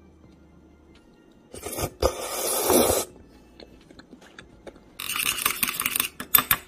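Close-miked eating sounds of raw sea cucumber, crunching and scraping in two loud bursts: one starting about a second and a half in and lasting about a second and a half, and a crisper, clicky one about five seconds in.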